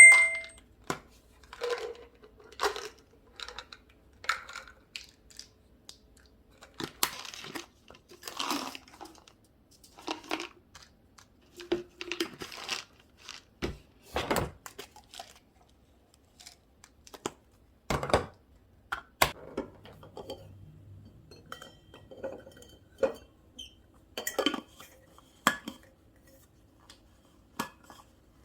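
Household objects being handled in a small room: scattered sharp clicks, taps and light clatter, with brief rustling and crinkling in between.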